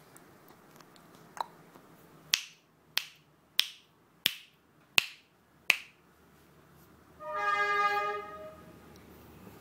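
Six sharp finger snaps, evenly spaced about two-thirds of a second apart, then a steady horn-like tone held for about a second.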